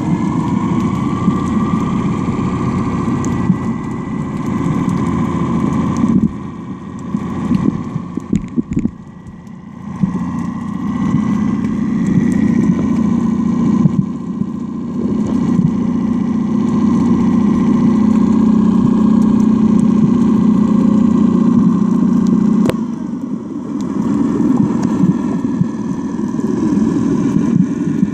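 Steady engine drone heard through water, with a faint thin whine above it. It fades for a few seconds about six seconds in, then comes back.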